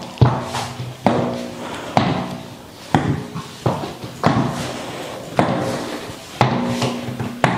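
Stiletto high heels clicking on a laminate wood floor in slow steps, about one a second. Each click rings on briefly in the bare room.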